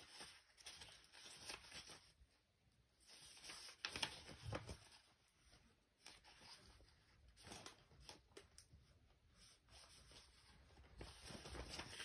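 Near silence, with a few faint, scattered rustles of paper pages being handled.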